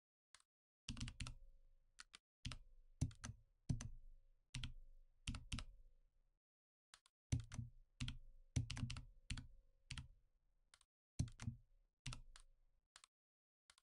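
Computer keyboard keystrokes and mouse clicks tapping in irregular runs, many with a dull low knock, with short pauses between runs: keyboard shortcuts and clicks while working in 3D modeling software.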